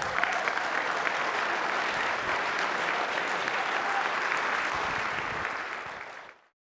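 Audience applauding steadily, many hands clapping, which fades out about six seconds in.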